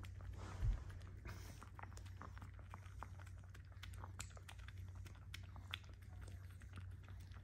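Chihuahua licking and lapping whipped cream: a run of small wet tongue clicks and smacks, with one low thump less than a second in.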